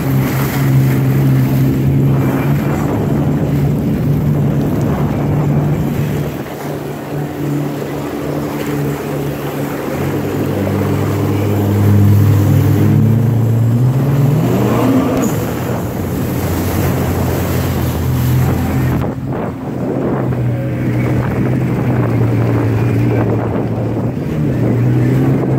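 Personal watercraft (jet ski) engine running under way, with rushing spray and wind on the microphone. Around the middle the engine note changes and climbs, and later the wind and spray noise falls away.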